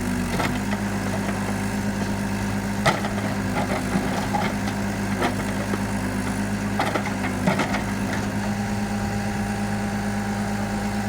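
Komatsu FAI 898 backhoe loader's diesel engine running steadily at idle, with a few short knocks and clanks scattered through.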